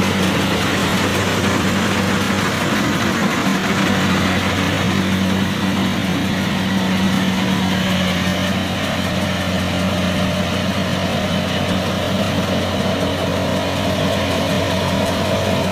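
Kubota DC70 rice combine harvester's diesel engine and threshing machinery running steadily as it cuts and threshes standing rice, a constant mechanical drone with a low hum.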